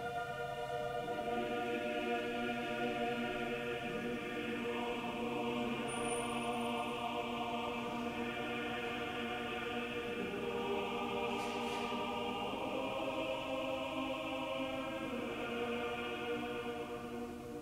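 Orthodox church choir singing Vespers chant a cappella in slow, sustained chords, the harmony shifting every few seconds before the final chord dies away near the end.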